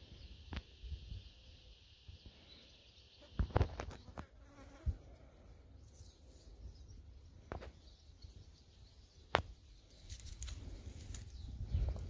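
A flying insect buzzing, with wind rumbling on the microphone and a few sharp clicks and rustles, the loudest about three and a half seconds in and again about nine seconds in.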